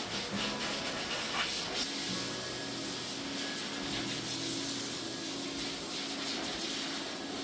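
Water spraying from a hose onto a cow's coat during a wash-down, a steady hiss. A low steady hum comes in about two seconds in.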